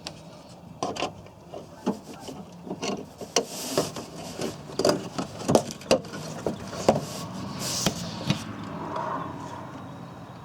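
Hands working on a pickup truck door's window regulator and track: irregular clicks, knocks and rubbing of metal parts, several a second.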